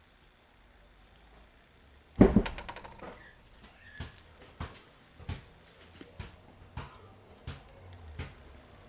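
Small metal hand-tool parts being handled as a ratchet is taken apart. A loud metallic clatter with a quick rattle comes about two seconds in, followed by a string of single light clicks and taps, roughly one every half second or so.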